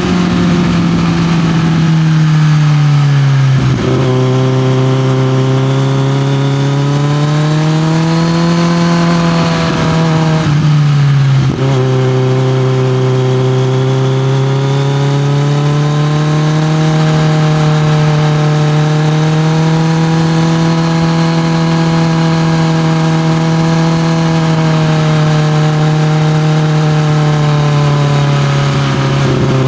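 Kawasaki Z900 inline-four engine running through an SC-Project CRT aftermarket exhaust, held at steady mid revs with the note slowly rising and falling. The pitch drops sharply twice, about four and eleven seconds in.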